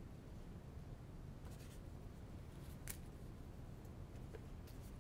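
Sweet potato slices being set by hand into a hot oiled skillet: three soft clicks, each a second or two apart, over a faint steady hiss.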